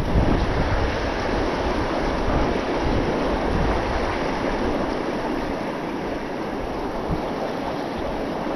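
Steady rush of flowing river water, with wind buffeting the microphone in low gusts, strongest about the first second.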